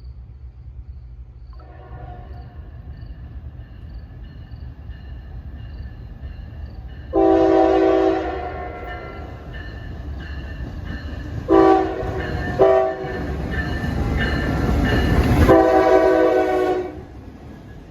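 Norfolk Southern freight train led by SD60E diesel locomotives approaching and passing, its engines and wheels rumbling louder as it nears. The locomotive horn sounds a long blast, two short blasts, then a final long blast.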